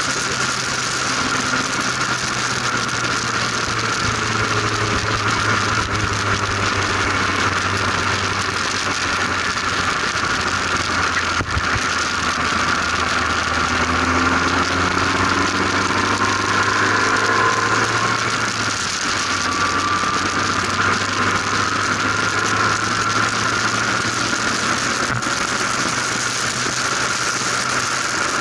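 Formula RP1 single-seater race car's engine running on track, heard from the open cockpit, its pitch slowly rising and falling as the car is driven.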